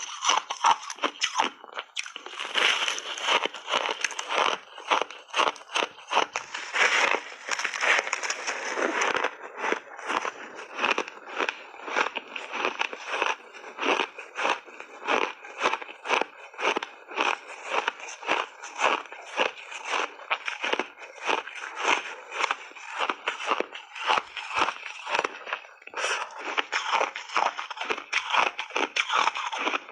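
Refrozen ice chewed in big bites close to the microphone: a steady run of sharp crunches, several a second.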